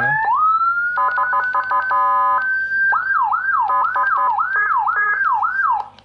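Whelen HHS2200 inject 200-watt siren module sounding loudly through its siren speaker, running through several tones in a row. It opens with a rising wail, switches to a rapidly changing multi-note tone about a second in, holds one note briefly, then gives repeated falling sweeps about two a second, and cuts off suddenly near the end.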